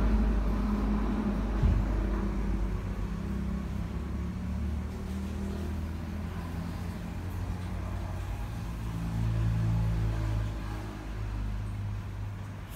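Steady low rumble that swells and fades slowly, with a single short knock about two seconds in.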